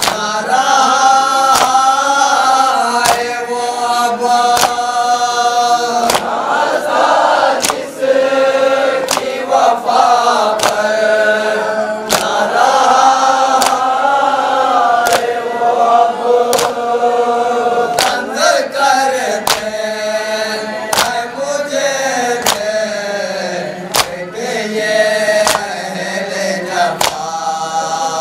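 A group of men chanting a Shia noha (Urdu lament) in unison behind a lead reciter, in long held, wavering phrases. Sharp slaps of matam, hands striking chests, keep time at about one a second.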